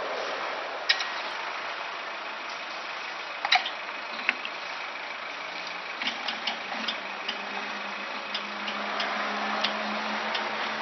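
Steady machine hum with scattered sharp metallic clicks and taps, as parts are bolted up with a hex wrench; about halfway through, a lower steady hum comes in along with a quicker run of small ticks.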